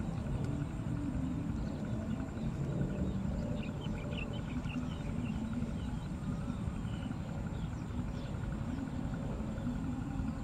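Rural outdoor ambience: a steady low rumble with a few faint, high bird chirps around four to five seconds in.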